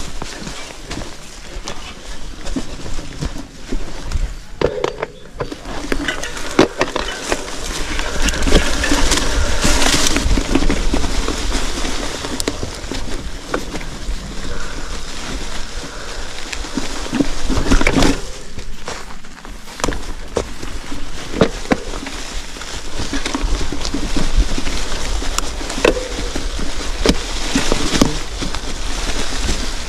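Wind rushing over a moving camera's microphone with rough rolling rumble, broken by scattered knocks and rattles.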